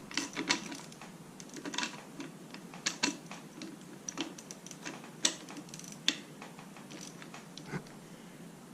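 Irregular light metallic clicks and taps of hand tools and small metal parts being handled, a few sharper knocks among them, growing sparser toward the end.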